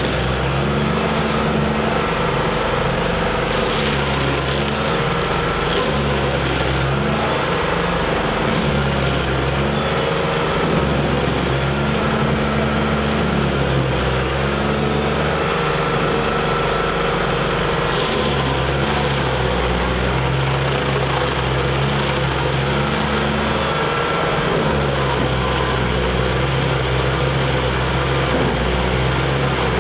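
Carlton 7015 stump grinder running under load as its cutter wheel grinds a stump into chips, the engine note shifting every few seconds as the wheel bites and clears.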